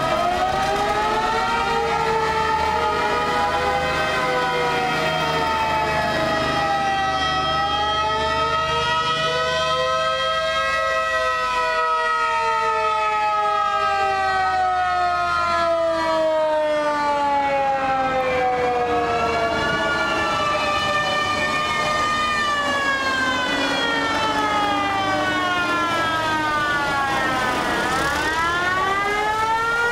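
Siren wailing, several tones slowly rising and falling over many seconds and crossing one another.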